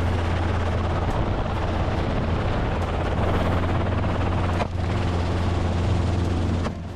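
Helicopter running steadily and loudly, a deep hum under a dense rush of engine and rotor noise, with a brief dip about two-thirds of the way through.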